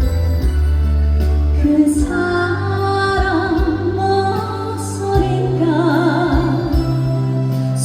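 A woman singing a slow trot ballad with vibrato on long held notes, over band accompaniment with a steady bass line.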